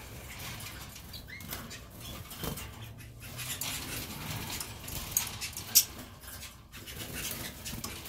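Canaries moving about in their wire cages: light scratching and scattered small taps and clicks, the sharpest a little before six seconds in.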